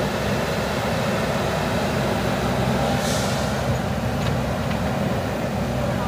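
Diesel engines of JCB backhoe loaders running steadily as the machines work. There is a brief hiss about three seconds in.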